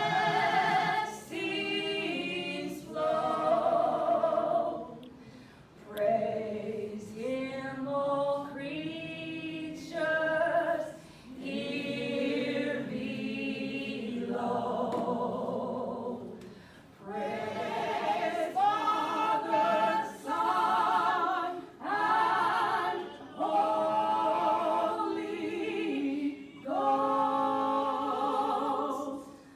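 Unaccompanied singing voices, choir-like, with long held notes and vibrato, phrase after phrase with short breaths between.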